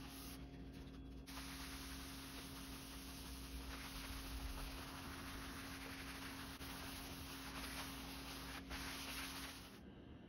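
A cloth rubbing back and forth over the flat face of a black walnut board, buffing in its oil and beeswax finish: a scratchy hiss that comes and goes with the strokes, over a steady low hum. The rubbing drops away near the end.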